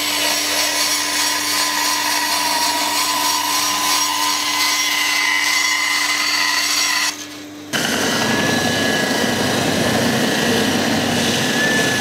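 Band saw running and cutting a curve through plywood. It stops about seven seconds in, and after a short break a belt sander starts sanding the plywood edge, a noisier sound with a high steady whine.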